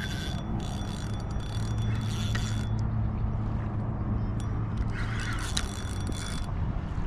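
Spinning reel being cranked to bring in a hooked fish, its gears whirring in two bursts, one starting about half a second in and one near the end, with a pause between as the rod is lifted.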